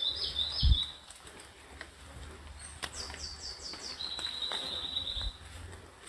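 Wild forest birds singing. The first second holds the end of a phrase of repeated slurred notes. About three seconds in comes a quick run of high falling notes, then a steady high trill lasting about a second. A low thump sounds under a second in.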